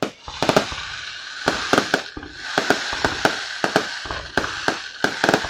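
Aerial fireworks display: a rapid, irregular string of sharp bangs, several a second, over continuous crackling.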